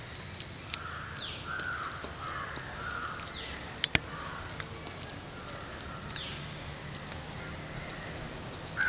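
Crows cawing, with another bird giving a short falling call several times, and two sharp clicks close together about four seconds in.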